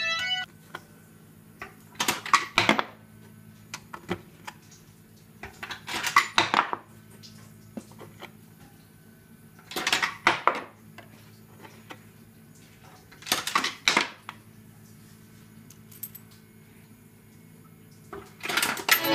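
Coins clattering and rattling in the home-made slot machine, in five short bursts of clicks about four seconds apart.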